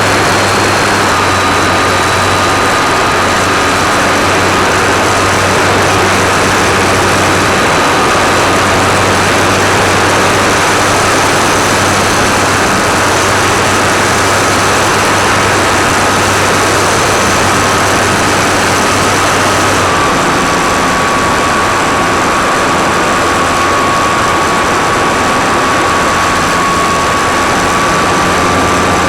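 Electric motor and propeller of an RC trainer airplane running steadily, picked up close by a mini camera mounted on the plane: a steady whine over a loud rushing hiss. About two-thirds of the way through the whine drops slightly in pitch as the throttle changes.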